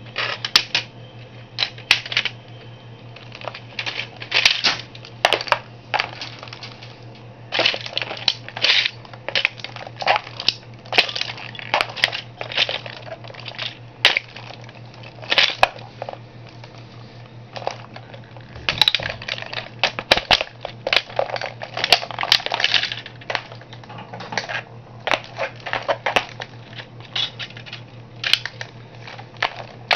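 Toy model car crushed underfoot by a shoe: many short, irregularly spaced crunches and cracks as its body and parts break, over a steady low hum.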